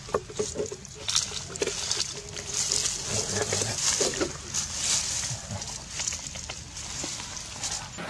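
Dry fallen leaves rustling and crackling as macaques move about on them, with scattered sharp clicks and rustles, busiest in the first five seconds.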